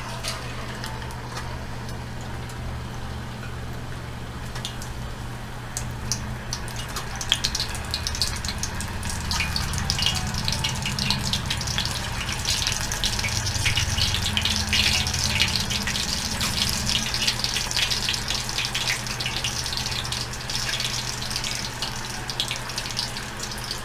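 Potato sticks deep-frying in hot oil in a saucepan: the oil bubbles and crackles, gentle at first, then a dense, busy crackle from about six seconds in.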